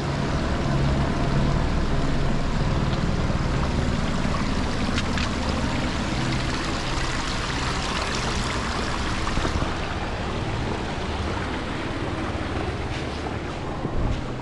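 Steady rushing of a mountain stream, with an uneven low rumble beneath it and a few faint clicks.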